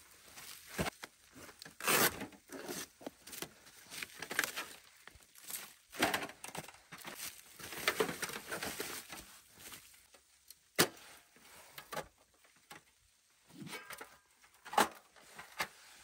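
A folding titanium wood stove being handled and set up: its thin metal parts and a rolled metal sheet rustle and scrape as they are drawn out and unrolled. A few sharp clicks come in the second half as the stove is unfolded onto its legs.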